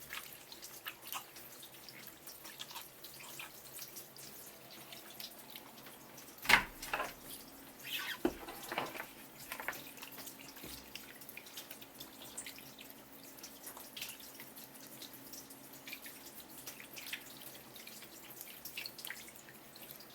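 Kitchen sink sounds: scattered water drips and small clicks, with a sharp knock about six and a half seconds in followed by a few more knocks over the next three seconds.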